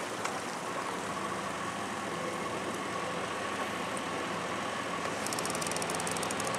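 A boat motor running steadily with a constant whine. About five seconds in, a fast, high-pitched ticking joins it.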